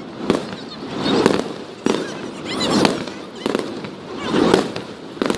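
Aerial fireworks display: shells bursting with several sharp bangs, between repeated swells of rumbling, crackling noise.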